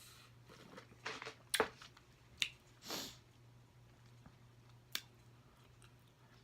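Close-up eating sounds: a handful of separate wet mouth clicks and smacks from chewing, over the first five seconds, with a faint steady hum underneath.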